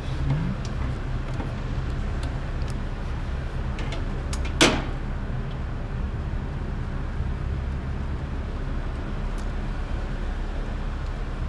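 Steady low drone with one sharp clank about four and a half seconds in and a few faint ticks, from hands-on work on the car.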